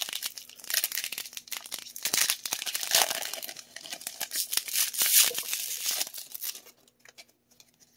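Foil Pokémon trading card booster pack wrapper being torn open and crinkled by hand: a dense run of crackling and tearing that stops about six and a half seconds in.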